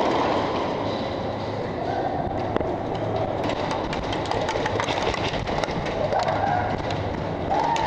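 Steady rushing, rumbling noise from a body-worn camera as the player moves fast with his gear, with faint scattered clicks of airsoft gunfire in the arena.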